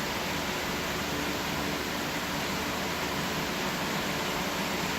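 Steady background noise: an even hiss with a low rumble underneath, unchanging and with no distinct event.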